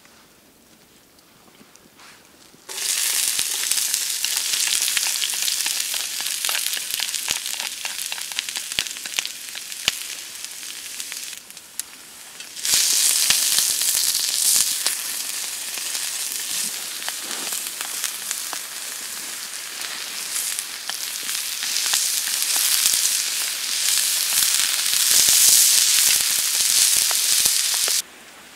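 Rice and vegetables stir-frying in a pan over a campfire: a dense sizzle full of fine crackles. It starts suddenly a few seconds in, gets louder about halfway through, and cuts off just before the end.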